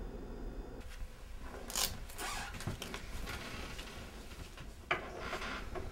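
Rustling and handling noises in a small room, with a few sharp clicks, the loudest about two seconds in and another near the end.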